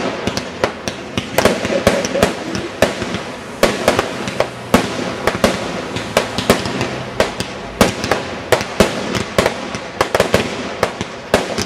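Aerial firework shells bursting in quick, irregular succession, several sharp bangs and crackles a second.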